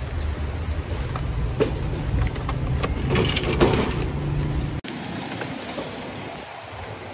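Close road traffic on a wet city street, a low engine rumble from passing vehicles, with light metal clinks and knocks from the stall's roof bracket and boards being handled. The rumble drops away abruptly about five seconds in.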